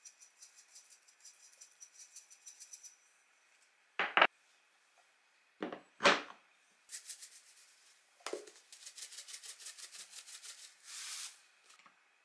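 Hand-twisted ceramic sesame grinder working in runs of quick, even clicks as seeds are ground and scattered, broken by a few louder knocks and a short hiss near the end.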